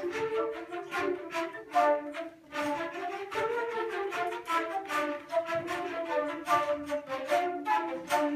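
Flute ensemble playing together: a stream of quick, short notes over lower held notes.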